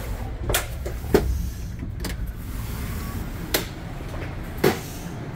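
Steady low hum inside a stationary Bombardier BiLevel commuter coach, with about five scattered sharp knocks and clunks as someone walks through the end doors into the next car.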